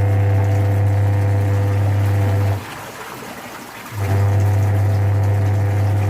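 LG semi-automatic washing machine's wash motor running with a loud, steady low hum. The hum cuts out for about a second and a half partway through, then starts again as the pulsator's agitation cycle alternates. The technician puts the noise down to a heavy blanket load straining the gearbox.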